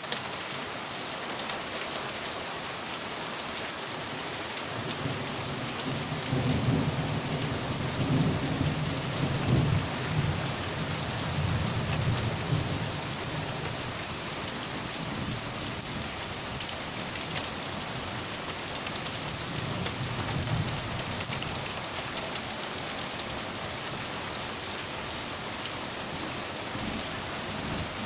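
Steady rain falling on a street and parked cars during a thunderstorm. Low thunder rumbles from about five seconds in to about thirteen seconds, and again briefly around twenty seconds.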